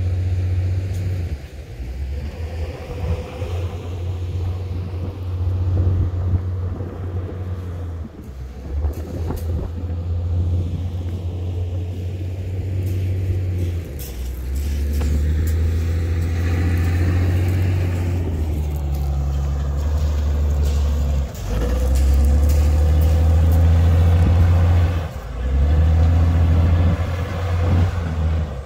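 Heavy machinery running: a steady low engine rumble that drops out briefly and resumes several times.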